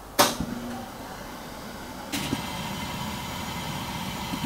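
A sharp click, then about two seconds in the fan of a Shinil fan heater starts up and runs with a steady whir and hiss: the heater coming on after its operate button was pressed.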